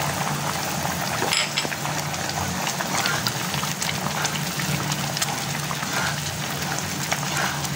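Vermicelli simmering in a pan of boiling water, a steady bubbling crackle with many small ticks, while a wooden spatula stirs through it. There is a brief knock about a second and a half in.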